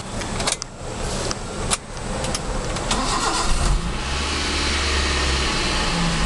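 A few clicks, then the Maruti Suzuki Zen's four-cylinder petrol engine is started: it cranks and catches about four seconds in, then idles steadily. This is the first start after the distributor was resealed and the plug wires refitted, and the owner judges the ignition timing right.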